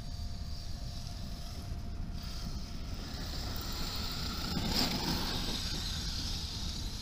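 Wind rushing over the microphone with a steady, faint high-pitched electric motor whine, which swells briefly about four and a half to five seconds in.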